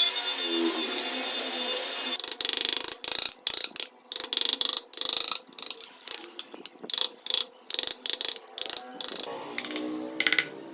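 Wood being worked with tools: a steady tool noise for about two seconds stops abruptly, then gives way to rapid, irregular short scraping strokes on wood, several a second.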